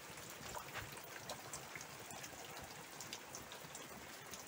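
Steady rain falling on a garden yard: a soft, even hiss with scattered drops tapping close by.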